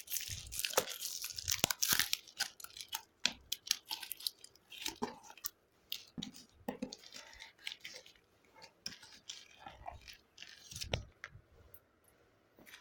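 A tough shipping box being forced and torn open by hand: irregular crunching, ripping and scraping of the packaging, busiest in the first couple of seconds, then in scattered bursts.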